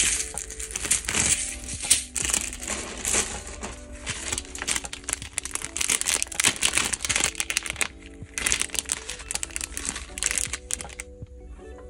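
Thin clear plastic packaging crinkling in repeated handling bursts as it is opened, with a brief pause about eight seconds in and a quieter close. Soft background music plays underneath.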